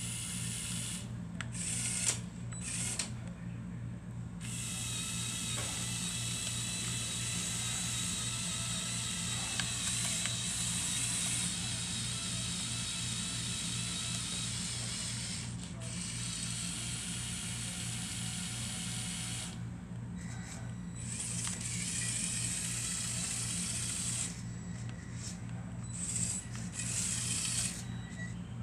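Small electric motors and plastic gears of a LEGO Technic RC forklift whirring in runs that start and stop several times, over a steady low hum.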